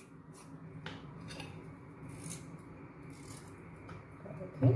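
Carrots being peeled: irregular scraping strokes of the blade along the carrot, with a louder knock near the end.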